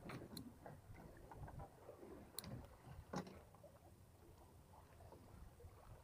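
Near silence: faint water against a small boat's hull, with a few light clicks, the loudest about three seconds in.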